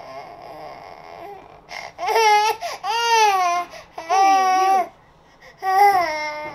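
A seven-month-old baby boy crying: quiet fussing, then four loud wavering wails starting about two seconds in. He is upset at being stuck standing, unable to work out how to sit back down.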